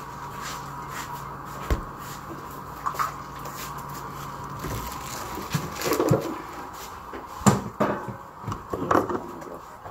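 Scattered knocks and clicks of kitchen things being handled, with a few sharper knocks in the second half. A steady low hum sits underneath and stops about halfway through.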